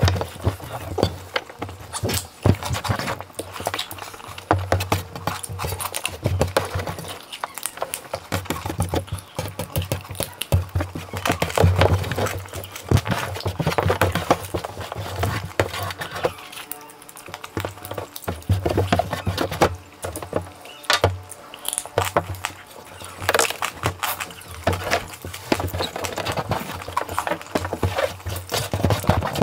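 Close-miked eating sounds of two people: chewing and lip-smacking fried chicken and rice, full of quick wet clicks, with fingers picking food off a metal tray.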